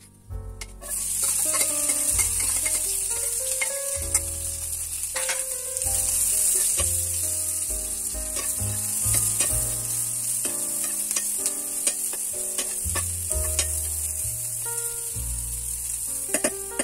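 Chopped potato, onion and greens sizzling in hot oil in a frying pan, the sizzle starting about a second in as they go in, with a metal spoon scraping and clicking against the pan as they are stirred.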